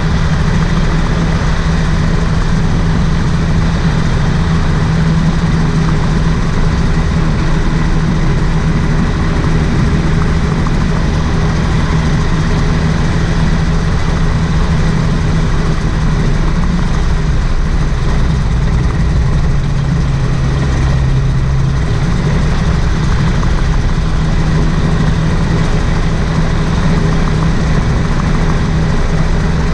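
Rotax 582 two-stroke twin engine of a float-equipped gyroplane running steadily as it taxis on water; its note drops slightly for a few seconds a little past halfway.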